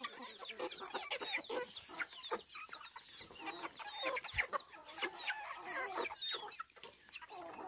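A flock of chickens clucking and calling, many short calls overlapping.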